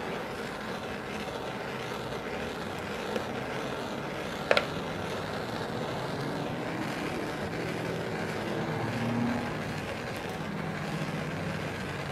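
Handheld propane torch burning with a steady hiss as its flame is played over a plastic bottle to heat-shrink it. A single sharp click a few seconds in.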